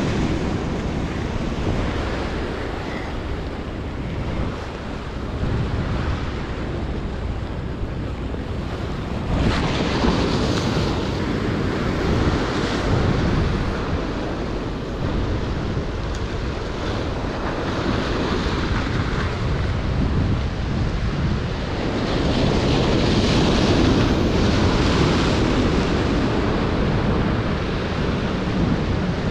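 Ocean surf breaking and washing over jetty rocks, a continuous rushing that swells louder about a third of the way in and again a little past two-thirds through.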